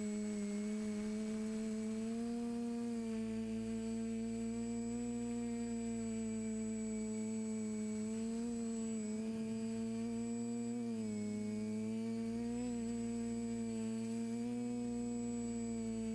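TBS Discovery Pro quadcopter's electric motors and propellers whining steadily, heard close from the camera on board. The pitch dips and rises a little a few times as the craft flies.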